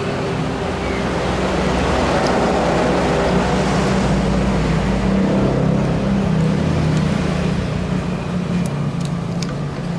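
A vehicle engine running steadily under a broad rushing noise, with a few light clicks near the end.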